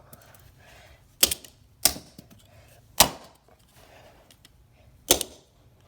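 Hammer striking a plastic wind-up toy four times: sharp knocks at uneven intervals as the toy is being smashed apart.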